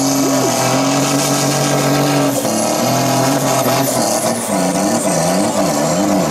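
Mercedes-Benz MB Trac turbo-diesel pulling tractor's engine running loud, with a high turbo whine that rises and then falls away about halfway through. In the second half the engine note swings up and down about once a second.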